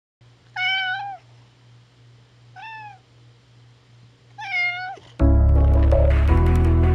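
A cat meows three times, the second meow quieter than the others, then music starts about five seconds in.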